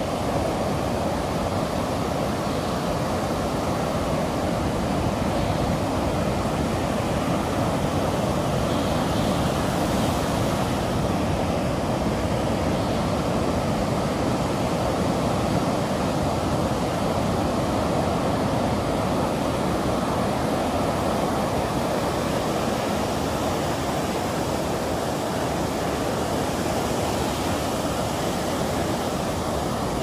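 Atlantic Ocean surf breaking on a sandy beach. It makes a steady, continuous wash, with no single wave crash standing out.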